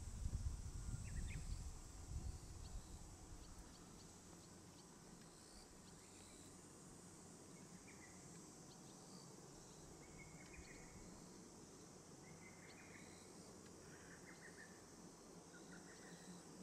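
Faint countryside ambience: a steady high drone of insects, with short chirps every second or two. A low rumble fades out in the first couple of seconds.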